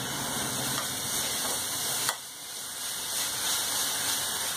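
Chopped dill leaves frying in hot oil in a nonstick kadai, a steady sizzling hiss as they are stirred, with a single click about two seconds in.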